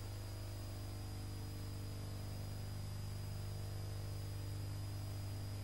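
A steady low hum with faint hiss and a thin high whine above it, unchanging throughout.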